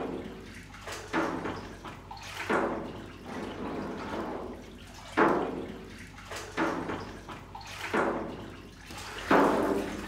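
Cow's-milk curds and whey sloshing in a large copper cauldron as they are stirred with a long stick, a swishing splash every second or two. The curd is being kept moving as it cooks toward 40–41 °C, so that it does not clump into blocks.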